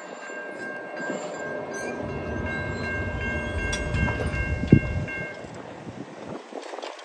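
Amtrak passenger train running on the tracks: a low rumble swells and fades, with a steady high-pitched tone over it and a sharp thump just before 5 seconds.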